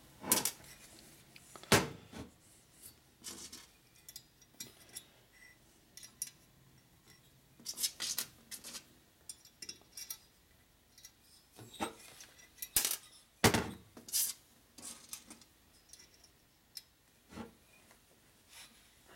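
Scattered metallic clinks, clicks and knocks as a shovelhead cylinder head with its valve springs, keepers and a C-clamp valve spring compressor is handled during valve assembly. The sharpest knocks come about two seconds in and twice in quick succession around thirteen seconds.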